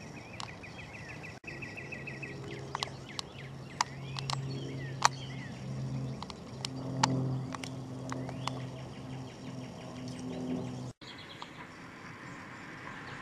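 Outdoor ambience: short pulsed chirping trills near the start and again toward the end, scattered sharp crackles like dry leaf litter being disturbed, and a steady low hum through the middle stretch.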